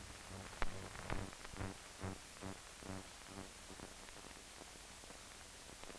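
Steady hiss of an old 16mm film soundtrack with a sharp click about half a second in. Under it, the tail of a drive-in jingle: faint low notes repeat about twice a second and grow fainter.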